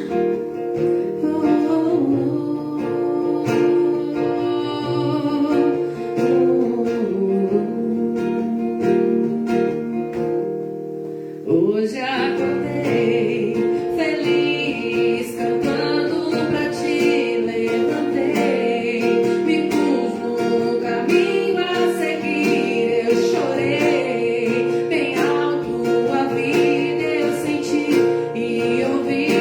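A live song played on acoustic guitar with singing, over sustained notes. About halfway through, after a brief dip, the music grows fuller and the melody rises higher.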